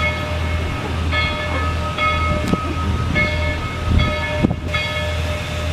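Steam locomotive's chime whistle blown in several blasts of about a second each, several tones sounding together, over a steady low rumble from the train: the whistle signal as the train moves off. A sharp knock sounds about four and a half seconds in.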